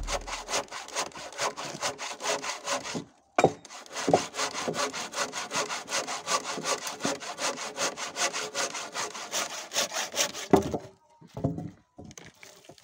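Hand saw cutting through wood in quick, even strokes, about four to five a second, with a short pause about three seconds in. The sawing stops about eleven seconds in, followed by a few light knocks.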